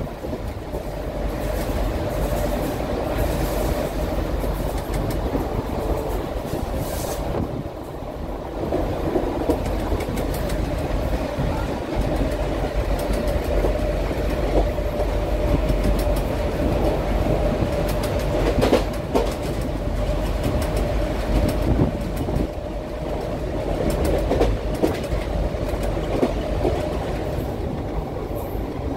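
Train running at speed behind twin WDG-3A ALCo diesel locomotives: the locomotives' engines drone with a steady hum over the rumble of the wheels, which click now and then over rail joints and points.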